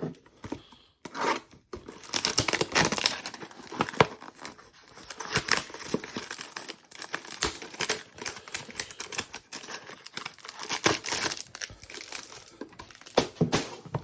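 Thin cardboard trading-card hanger boxes being torn open by hand, with crinkling of the wrapped packs inside: a run of irregular rips and rustles.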